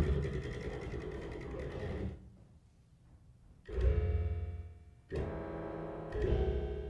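Electronic music performance: dense, sustained pitched tones with deep bass that cut off into a brief near-silence about two seconds in, then re-enter suddenly twice.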